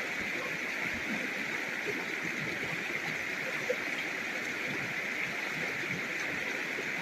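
Steady rushing of a mountain stream: an even, unbroken wash of running water.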